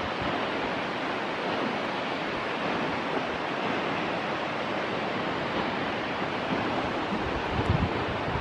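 Steady rushing wind on an open mountainside, with low gusts buffeting the microphone near the end.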